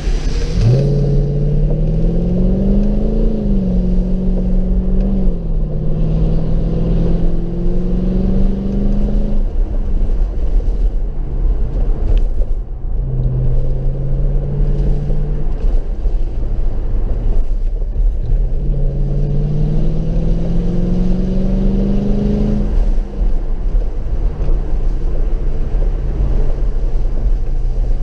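Mercedes SLK 55 AMG V8 engine under way, heard from inside the car over a steady low road rumble. The engine note climbs several times as the car accelerates and drops back when the throttle eases.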